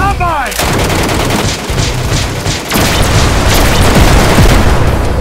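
A rapid run of loud gunfire-like bangs, several a second, that does not let up.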